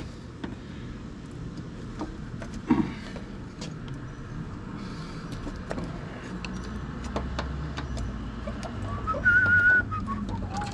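Hands working at a hose on a barbed fitting, with scattered clicks and knocks over a low hum. A short, wavering whistle comes near the end.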